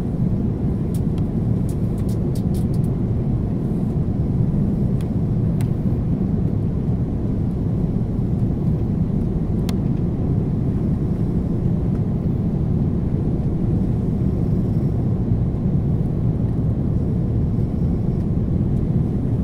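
Steady low rumble of airliner cabin noise, jet engines and rushing airflow heard inside the cabin on the approach to landing. A few faint ticks come in the first half.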